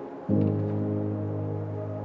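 Calm ambient background music. About a third of a second in, a new low, horn-like note with overtones comes in suddenly and is held.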